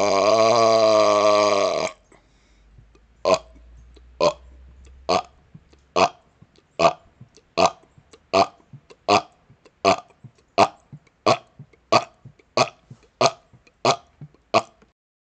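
A man's long, drawn-out belch ends about two seconds in. After a short pause comes a steady string of about sixteen short, sharp burps, a little more than one a second, getting slightly faster toward the end.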